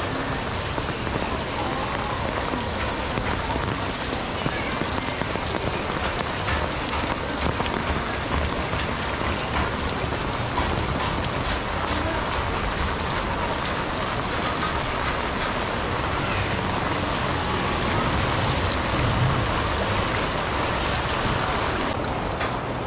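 Torrential rain pouring onto a wet, water-covered street: a steady, dense hiss full of fine drop patter. Near the end the high hiss drops away suddenly.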